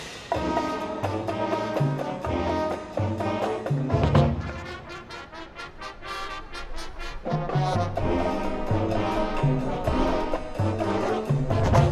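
College marching band playing: brass winds over a repeating low bass figure, punctuated by sharp percussion strikes.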